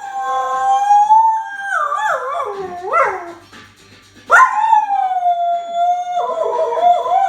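Border collie howling: two long howls, each held on a steady note and then wavering up and down before it breaks off. The second begins about four seconds in.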